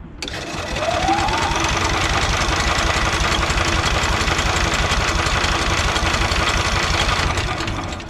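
Honda GX340 engine being cranked by an electric starter for about seven seconds without firing: the starter whines up to speed in the first second, then spins steadily and fast, and the engine never catches. The engine is on choke with fuel on; the owner suspects the newly wired kill switch or a lack of fuel.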